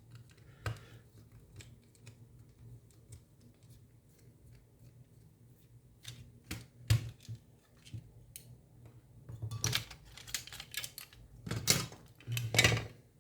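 Scattered light clicks and taps from handling an Xbox controller and its batteries on a workbench, with a denser bout of clattering over the last few seconds. A steady low hum runs underneath.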